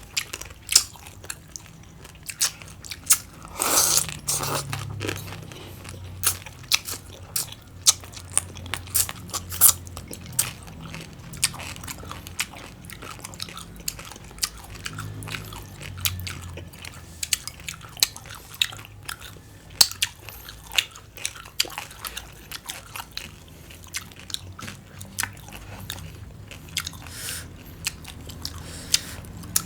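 A person chewing crunchy green papaya salad and cucumber close to the microphone: a steady run of sharp, crisp crunches, with one longer, louder crunching bite about four seconds in.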